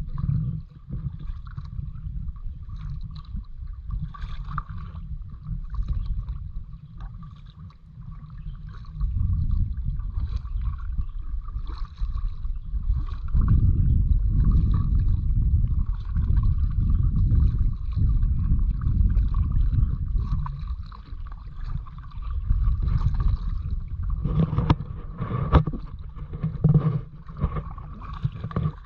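Kayak out on the water: gusty wind rumbling on the microphone, swelling strongly about nine seconds in and again from about thirteen to twenty-one seconds, over water gurgling and the odd knock of a paddle.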